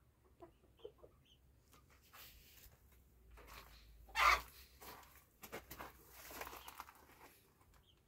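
Domestic chickens clucking faintly, with scattered light clicks and scuffs and one louder, brief noisy burst a little over four seconds in.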